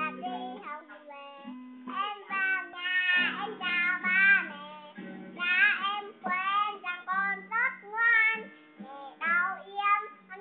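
A young girl singing a song, with an acoustic guitar strummed under her voice.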